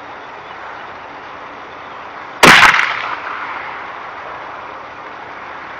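A single shot from the left barrel of an 1860s R. Richardson 12-gauge double-barrelled shotgun loaded with about 50 grains of black powder, about two and a half seconds in. The report tails off over about a second.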